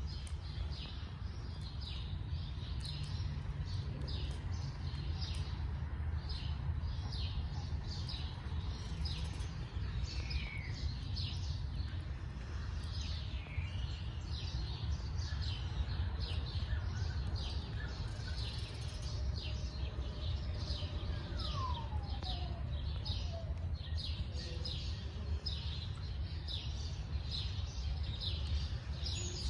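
Small birds chirping over and over in short high notes above a steady low rumble, with one falling whistle about two-thirds of the way in.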